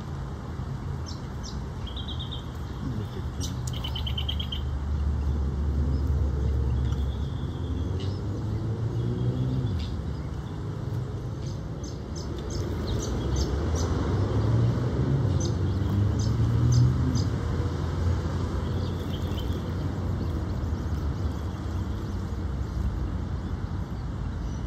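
Steady low rumble of distant freeway traffic, swelling and easing, with short high bird chirps and peeps scattered over it and a quick run of chirps about halfway through.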